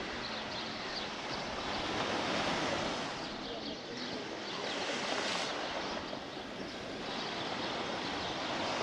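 Sea waves breaking and washing up on the beach, swelling and falling away every few seconds.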